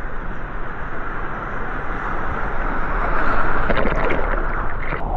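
Ocean surf rushing and churning, with wind buffeting the microphone; it swells louder about three seconds in.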